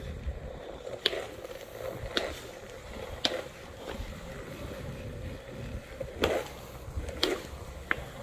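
Skateboard wheels rolling steadily over smooth, laser-leveled concrete, with sharp clicks about once a second as the wheels pass over the floor.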